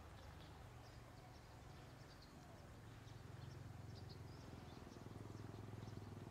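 Faint outdoor ambience: small birds chirping in short high notes over a low steady hum that grows a little louder partway through.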